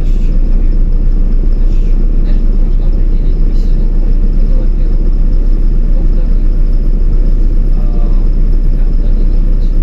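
LiAZ-5292.22 city bus under way, a steady low rumble of engine and road noise heard from inside the passenger cabin.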